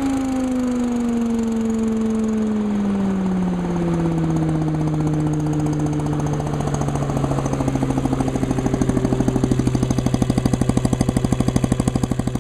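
Leaf vacuum with a Honda single-cylinder engine running. Its pitch falls steadily over the first four seconds as it slows from high speed, then it settles at a lower, steady speed with an even, throbbing pulse that grows stronger toward the end.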